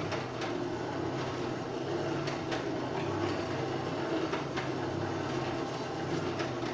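Blacksmith's forge running: a steady rush of air over a low hum, with a few faint clicks scattered through it.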